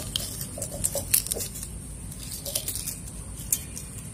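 Boiled egg being peeled by hand: the shell cracks and is picked off in a run of small, irregular crackling clicks.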